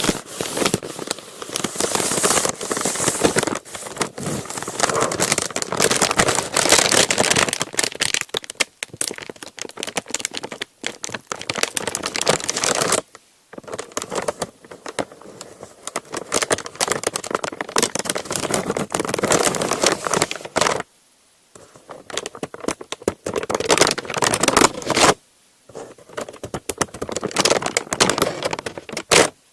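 Parchment paper being crumpled and crinkled in the hands, a dense crackling rustle that stops briefly a few times.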